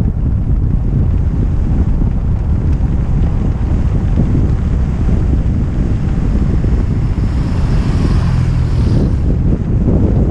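Strong wind buffeting the action-camera microphone as a kick scooter runs fast downhill, a steady low rumble. About eight seconds in, an oncoming vehicle passes and briefly adds a brighter rush and hum.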